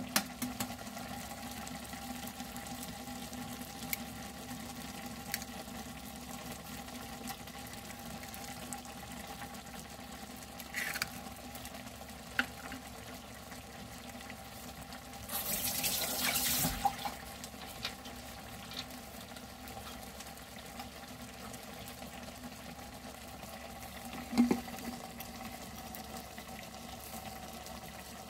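Ramen boiling in a glass saucepan and saury simmering in a small pan on an electric cooktop: a steady bubbling hiss over a low, even hum. A few light clicks are heard, and a louder hissing rush lasts about a second and a half around the middle.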